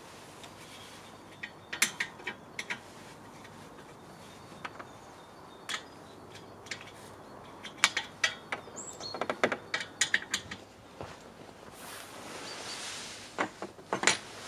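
Metal clicks and clinks of an aluminium mounting bracket, bolts and nuts being fitted by hand to a solar panel's frame rail, coming in scattered clusters with the busiest run in the middle.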